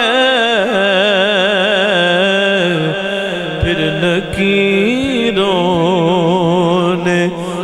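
A male naat reciter singing into a microphone, drawing out long wavering, ornamented notes with no words.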